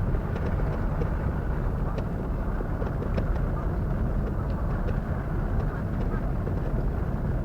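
Steady low rumble of a large ferry manoeuvring in harbour, mixed with wind buffeting the microphone, with a few faint ticks.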